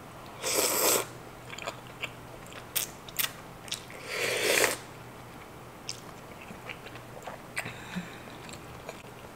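Close-up mouth sounds of eating udon noodles: a loud slurp of thick udon noodles about half a second in, a second loud slurp of creamy sauce from a wooden spoon around four seconds, and soft wet chewing clicks between and after.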